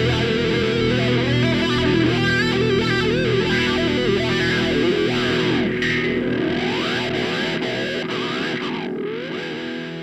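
Background music led by distorted electric guitar with effects and bending notes, getting gradually quieter over the last few seconds.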